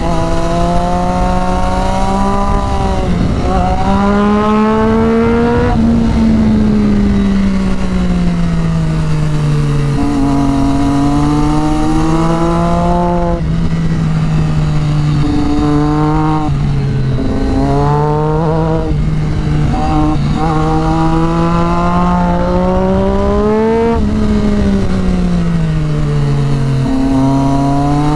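Sport bike engine running hard on a twisty road, its pitch rising under acceleration and falling off into the corners, over and over, with a few quick gear changes around the middle. Steady wind rush over the microphone underneath.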